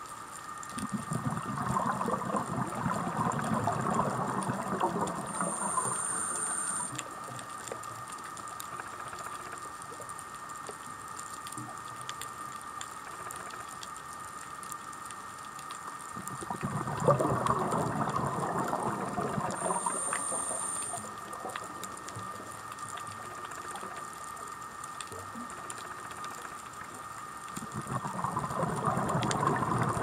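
Scuba diver's exhaled bubbles from the regulator, three long bubbling breaths about twelve seconds apart with quieter pauses between, heard underwater.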